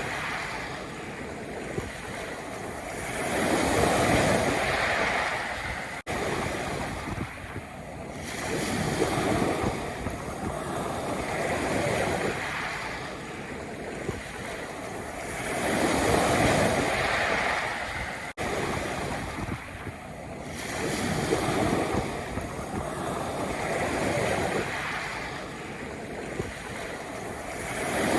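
Sea waves breaking and washing over a pebble beach, a swell about every four seconds. The sound cuts out for an instant twice.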